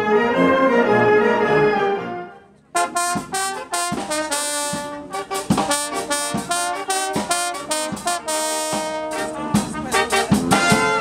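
Brass band of tuba, saxophones and trumpets playing a lively tune over a steady beat of sharp percussion hits. It starts nearly three seconds in, after a held brass passage fades out.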